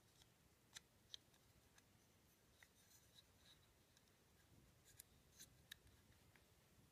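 A handful of faint, sharp clicks and taps of metal parts as a Sig Sauer P226 pistol frame is handled, the sharpest about a second in and again around five seconds in.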